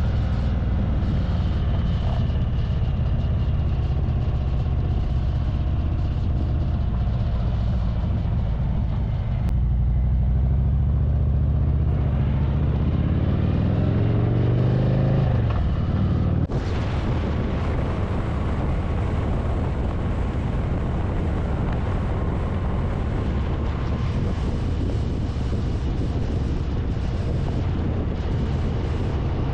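Motorcycle engine running on the road, rising in pitch as it speeds up about halfway through. It then settles into a steady drone with wind rushing over the microphone.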